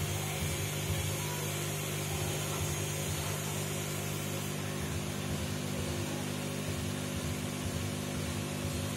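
Aquarium aeration running: a steady mechanical hum with bubbling water underneath.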